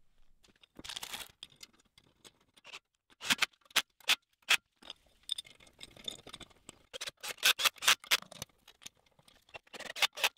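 Sharp metallic clicks and clinks of steel cover plates and socket-head screws being handled and fitted, coming at irregular spacing and sometimes in quick clusters.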